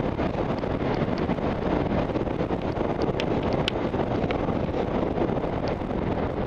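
Steady wind rush on a helmet camera's microphone while skiing downhill, blended with the hiss of skis sliding on snow. A few sharp clicks about three to four seconds in.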